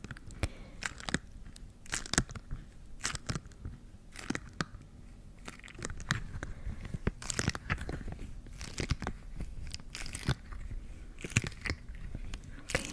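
Close-miked ASMR trigger sounds: irregular crisp clicks and crunches, scattered unevenly over a low hiss.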